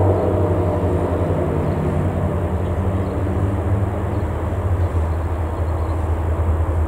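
EMD SD60E diesel locomotive approaching under power, its 16-cylinder two-stroke engine giving a steady low drone over the rumble of the loaded gondola train on the rails.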